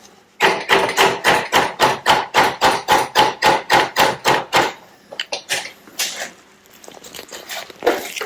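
Rapid, evenly spaced hammer blows, about five a second, that stop about four and a half seconds in, followed by a few scattered knocks and clicks. The hammering is an attempt to free a seized outboard engine and does not succeed.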